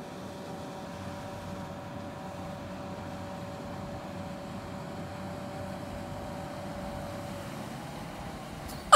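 SHERP amphibious all-terrain vehicle heard from a distance as it drives through the water, its tires churning: a steady engine hum with a faint high whine that shifts slightly in pitch near the end.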